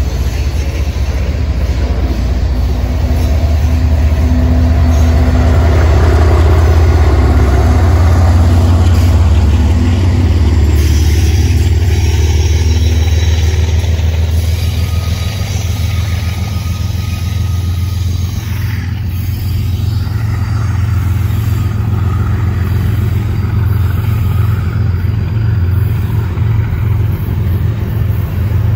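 Freight train of loaded ethanol tank cars rolling past close by: a steady low rumble of wheels on the rails, swelling a few seconds in and easing off in the second half.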